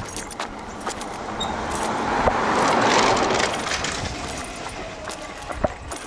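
A road vehicle driving past, its tyre and engine noise swelling to a peak about halfway through and then fading away.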